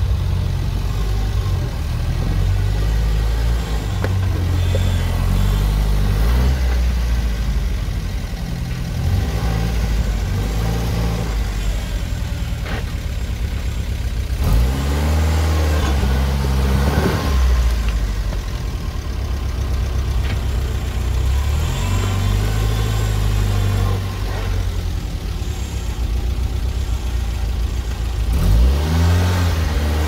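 Off-road vehicle engine running under load at low speed, revved up and down a few times, most plainly about halfway through and again near the end.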